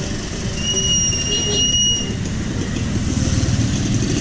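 Street traffic rumble with one steady high-pitched squeal lasting about a second and a half, starting about half a second in.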